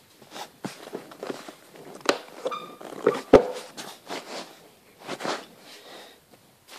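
Irregular clunks, knocks and rustling from car interior parts being handled and fitted, with a brief squeak about two and a half seconds in and a sharper knock just after three seconds.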